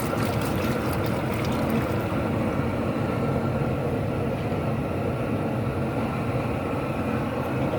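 Outdoor propane boil burner running under a seafood boil pot: a steady rushing rumble that does not change, with a few faint clicks in the first couple of seconds.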